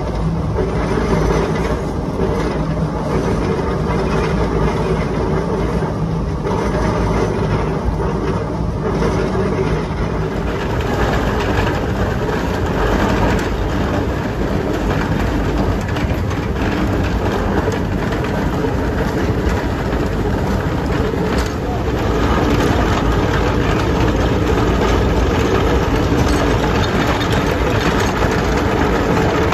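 Shay geared steam locomotive No. 4 and its train running along the track, heard from close behind the tender: a steady, loud mix of locomotive working noise and the train rolling on the rails.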